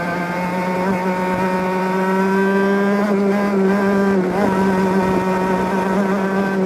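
Two-stroke racing kart engine at high revs, heard from on board the kart. The pitch climbs slowly as it pulls, dips briefly about four seconds in as it eases through a bend, then pulls again.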